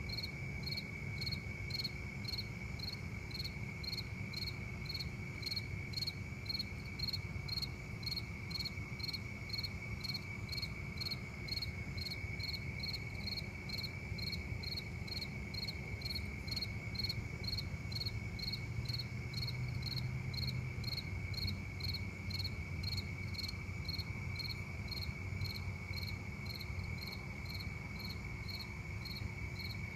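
Crickets chirping: short high chirps repeating about twice a second over a steady lower-pitched trill, with a faint low rumble underneath.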